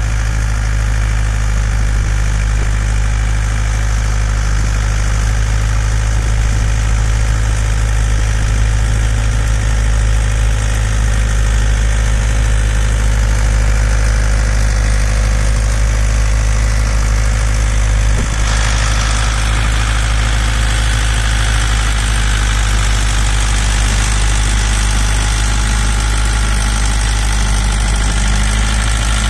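Dongfeng DF-404 tractor's diesel engine running steadily under load, driving a rotary tiller through the soil. The sound turns suddenly harsher and brighter about two-thirds of the way through.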